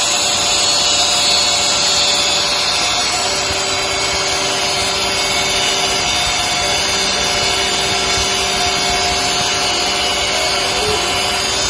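Mini CNC milling machine's 300 W spindle cutting aluminium: a steady, high-pitched machining whine and hiss, with a few lower tones that step in pitch now and then.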